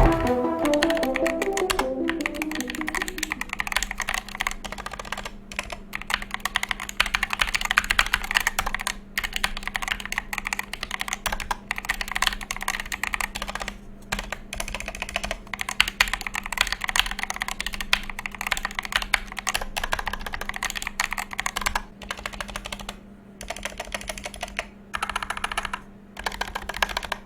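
Kemove DK66 mechanical keyboard being typed on fast, a dense run of key clicks with a few brief pauses. Music fades out in the first couple of seconds, and a faint steady hum sits underneath.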